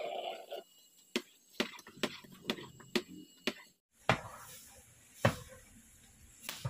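Sharp wooden knocks of a stirring paddle against a large pot of thick, nearly finished lehyam, about two a second, then a few more spaced out after a short break.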